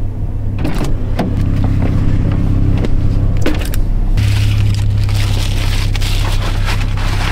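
Knocks and clicks of a person getting into a car, then the crinkling rustle of a foil-bubble reflective window cover being handled from about four seconds in, over a steady low hum inside the car's cabin.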